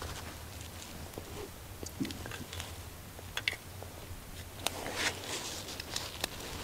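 A person drinking tea: quiet sips and the small clicks of a cup and thermos being handled, over a low steady hum.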